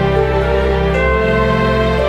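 Background music of slow, long-held chords.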